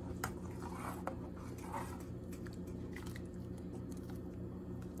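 A spoon stirring ground coconut paste into a vegetable curry in a stainless steel saucepan: soft squelching with a few light clicks and scrapes of the spoon against the pan, over a steady low hum.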